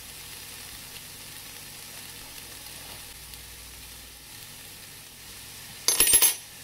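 Vegetables sautéing in butter in a frying pan, sizzling steadily just after the burner has been turned off. Near the end comes a quick run of loud knocks in the pan.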